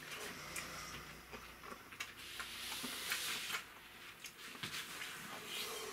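Quiet eating sounds: a wooden spoon scooping rice from an aluminium mess tin, with a few light clicks and soft chewing.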